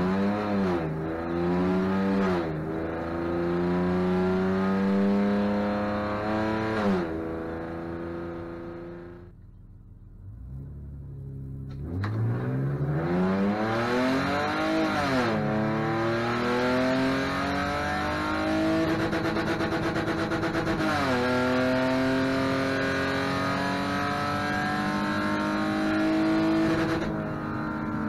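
BMW E46's engine under hard acceleration through its ZF 5HP19 automatic transmission, the pitch climbing and then dropping back at each upshift, over several runs with a short lull about a third of the way in. The upshifts are the faulty early shifting the owner calls short shifting, which he traces to a failing gear selector switch.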